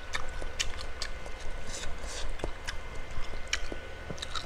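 A person chewing a mouthful of beef rib meatball with the mouth closed: wet, irregular chewing clicks and smacks.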